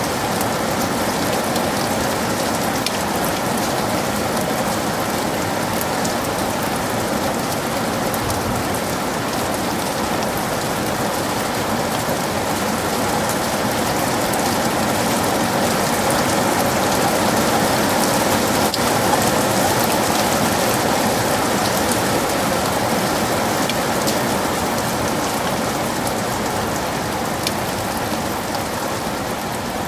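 Heavy rain falling steadily in a forest: a dense, even hiss with many individual drops ticking through it.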